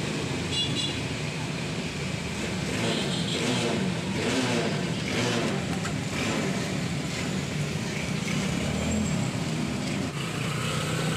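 Road traffic: a motor vehicle's engine passes, rising and falling in the middle, over a steady traffic hum.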